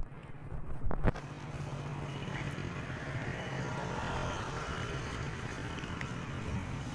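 Street traffic: a motor vehicle's engine runs steadily and grows louder toward the middle as it passes, then eases off. A couple of sharp knocks sound in the first second.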